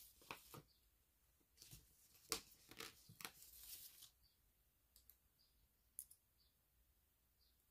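Quiet clicks, taps and a short paper rustle as a paper sticker is handled and peeled from the sticker sheet with tweezers. The loudest click comes a little over two seconds in.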